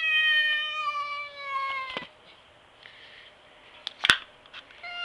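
A cat yowling: one long drawn-out call held for about two seconds and sagging slightly in pitch, then a second yowl starting near the end, with a few sharp clicks in between. It is the howling of a cat squaring up to a rival cat.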